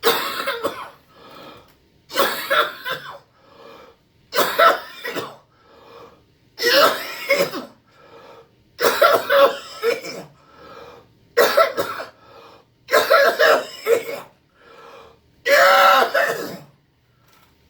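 A 76-year-old man coughing hard on request, about eight forceful coughs roughly one every two seconds. The deliberate coughing is meant to provoke his cough-induced vertigo and nystagmus.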